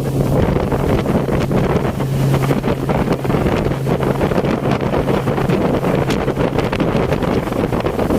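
Motorboat under way, its engine a steady low drone under heavy wind buffeting on the microphone and the rush of water past the hull.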